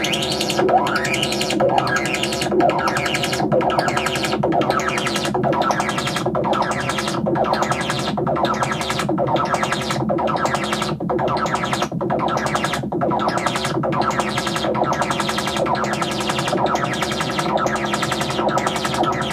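Make Noise Eurorack modular synthesizer playing a patch: a sustained, chord-like drone that pulses about once a second, with rising pitch sweeps in the first couple of seconds.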